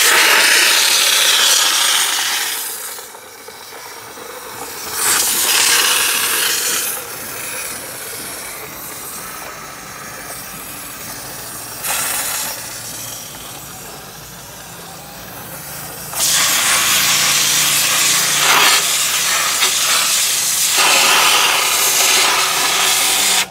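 Compressed-air siphon spray gun hissing as it blasts cleaning solvent onto CVT transmission parts to wash out the sludge. It comes in loud bursts: one at the start, another a few seconds later, a short one midway, and a long one for the last several seconds, with quieter hissing between.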